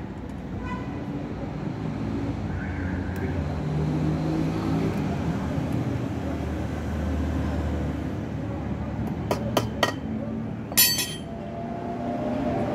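Steady rumble of passing road traffic, with an engine hum swelling and fading midway. A few sharp clicks come about nine to ten seconds in, and a louder crackling click about eleven seconds in.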